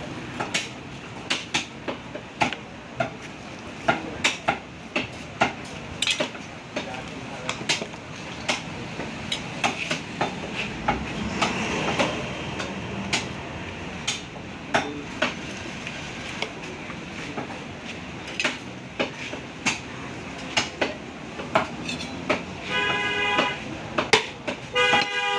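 Butcher's knife working a side of beef on a wooden log chopping block: irregular sharp knocks and clicks, about one to three a second, over a steady background bustle.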